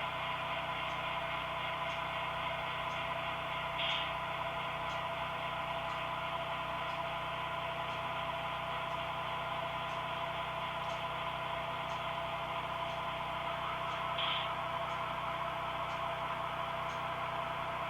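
HO-scale model train running on the layout: a steady electric-motor hum with faint ticks about once a second, and two brief louder rushes of noise about 4 and 14 seconds in.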